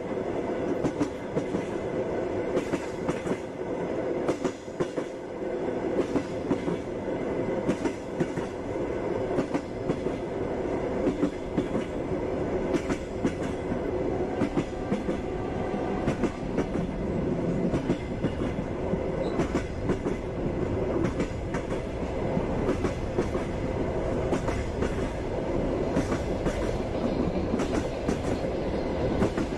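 Passenger train running along the track: a steady rumble with the rhythmic clickety-clack of wheels knocking over rail joints, sharp knocks coming several times a second.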